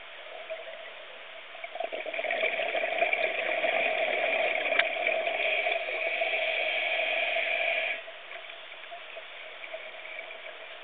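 Scuba diver's exhaled bubbles gurgling out of the regulator, heard underwater; the bubbling starts about two seconds in and cuts off sharply about eight seconds in, with a steady faint underwater background before and after.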